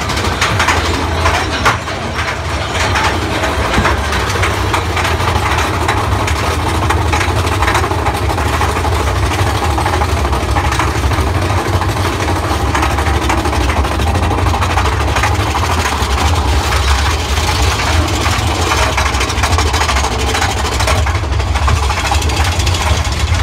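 Loud steady rumble of the Big Thunder Mountain Railroad mine-train roller coaster running along its track, with rapid clacking from the wheels and lift-hill chain throughout.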